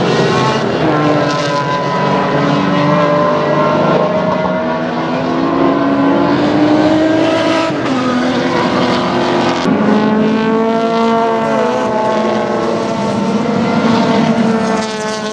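Several historic race cars at racing speed, their engines overlapping. Each engine's pitch climbs under hard acceleration and drops back at each gear change or lift.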